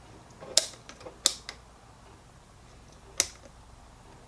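Sharp clicks from the controls of a handheld Cen-tech digital multimeter being worked by hand: three loud clicks about half a second, one and a quarter and three seconds in, with a few fainter ones between the first two.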